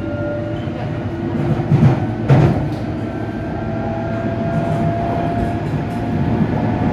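London Underground District line train running between stations, heard from inside the carriage: a steady rumble with a thin motor whine that rises slowly, and two sharp knocks about two seconds in.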